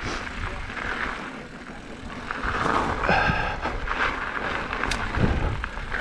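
Mountain bike riding down a loose gravel trail: tyre crunch and rattle over the surface, with wind buffeting the microphone.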